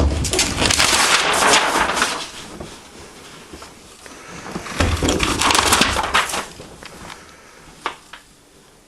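A paper poster being pulled off the wall and torn, two long crackling rips, the first at the start and the second about five seconds in, followed by a single sharp tap near the end.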